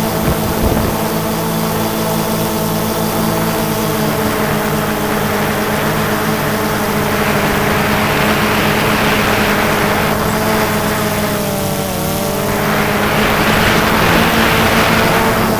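Multirotor drone's electric motors and propellers whining steadily, heard from the camera on board. The pitch shifts about twelve seconds in, and a rushing noise swells twice, around eight and thirteen seconds in.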